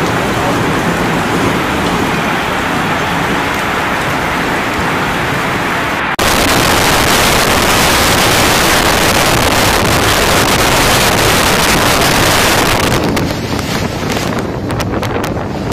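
Storm wind and heavy driving rain as a loud, steady rush of noise, with wind buffeting the microphone. About six seconds in the sound jumps to a louder, hissier rush, and near the end it turns duller with scattered crackles and knocks.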